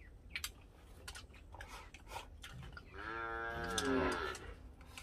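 An animal's single long, low call about three seconds in, lasting over a second and dropping in pitch as it ends, with faint clicks and taps before it.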